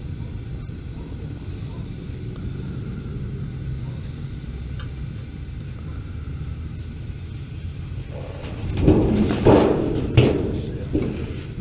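A steady low rumble, with a louder stretch of muffled sounds about nine to eleven seconds in.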